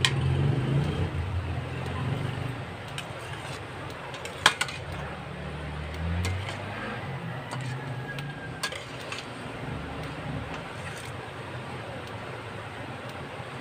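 Metal spatula stirring a stainless steel pot of saucy stew, with scattered clinks and scrapes against the pot and one sharp knock about four and a half seconds in. A low steady rumble runs underneath.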